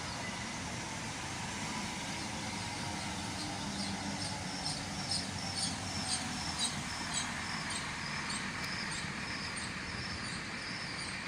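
Steady running noise of a train at the platform, with a high chirping repeated about twice a second from a few seconds in.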